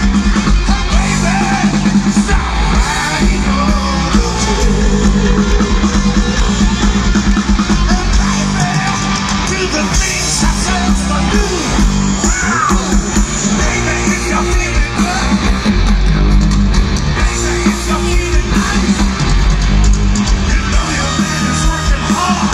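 Hard rock band playing live and loud through a stadium-size PA: distorted electric guitars, bass and drums with a voice singing over them, heard from within the audience.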